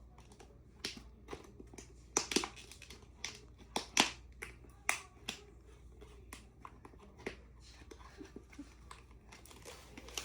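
Plastic packaging of a squishy toy crackling and clicking as it is handled and pulled at to get it open: a string of sharp, irregular clicks, loudest about two and four seconds in.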